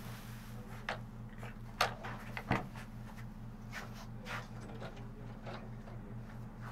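A few sharp clicks and knocks, the loudest about two seconds in, from a person getting up and moving about a small room, over a steady low electrical hum.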